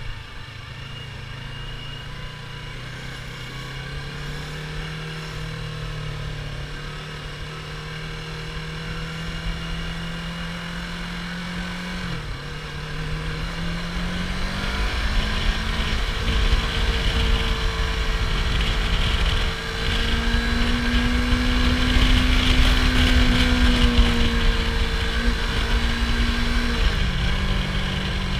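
Yamaha R25's 249 cc parallel-twin engine on its stock exhaust, running under way with the pitch climbing gradually. The pitch dips briefly about twelve seconds in and drops again near the end, and the engine gets louder in the second half over a low rumble.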